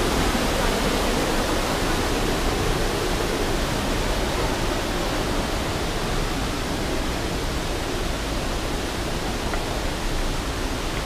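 Steady rush of water from the creek and falls in a rock gorge, a constant even roar with no breaks.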